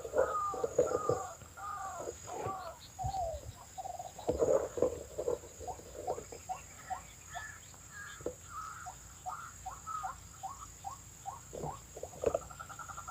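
White-breasted waterhen calling: a long run of rapid, repeated croaking notes, each curving down in pitch, about two to four a second, with a steady high insect-like whine underneath.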